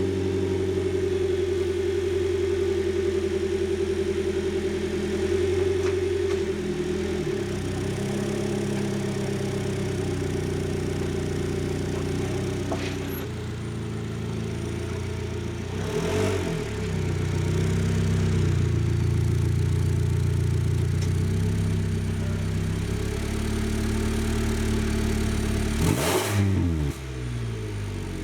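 Car engine running just after being started, its pitch rising and falling a few times as it revs.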